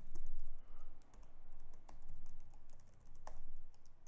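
Computer keyboard being typed on: a run of irregular keystroke clicks.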